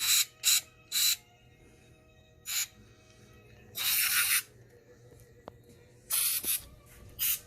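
Short hissing bursts of aerosol carburetor cleaner sprayed into the carburetor's small passages: seven quick squirts, the longest about four seconds in, two close together near the end.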